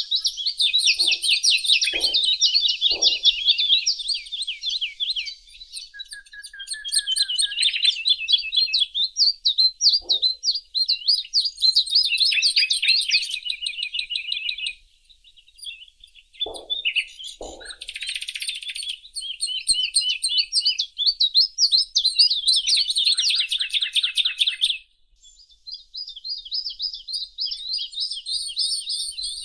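Small songbirds singing and chirping, several voices overlapping in rapid high trills, with brief lulls about halfway and near the end. A few short, lower-pitched calls come through now and then.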